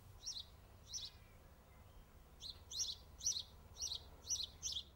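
Songbird chirping: short high notes, a few spaced out at first and then a quicker run of about two a second in the second half, over a faint steady low rumble.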